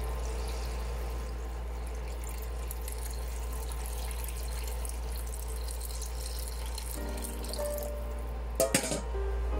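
Hot water poured in a stream from a kettle into a shallow pan, splashing and trickling, stopping about seven seconds in. Two sharp knocks come close together near the end.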